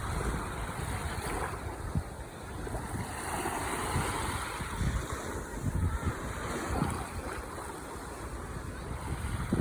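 Ocean waves washing onto the shore, one wave swelling and breaking about three to four seconds in, with wind buffeting the microphone.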